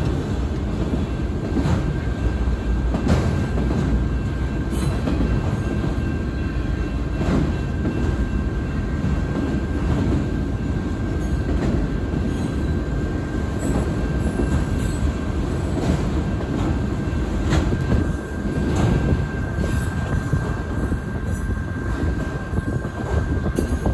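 Freight train of auto rack cars rolling past: a steady low rumble with irregular clacks of wheels over the rail joints and a thin steady high tone running underneath.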